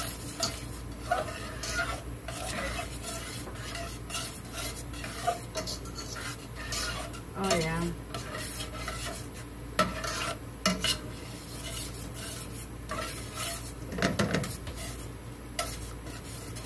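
Wire whisk stirring a thick milk gravy in a stainless steel saucepan, its wires clicking and scraping against the pan in quick, irregular strokes, with the gravy sizzling in the pan.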